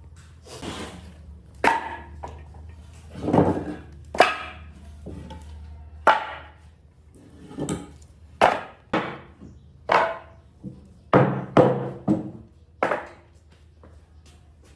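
About a dozen irregular wooden knocks and clacks, spaced roughly half a second to a second apart, as pieces of scrap wood are handled or struck.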